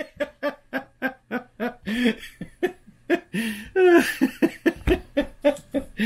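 A man laughing: a long run of short, rhythmic bursts of laughter, loudest about four seconds in.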